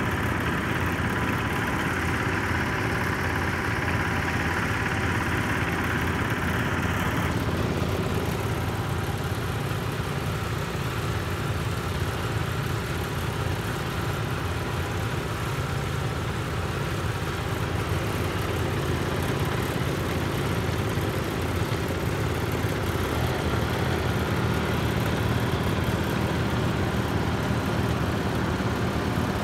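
Small engines of several Sears garden tractors running together as the tractors drive across grass in a group, a steady engine drone that shifts in tone about seven seconds in.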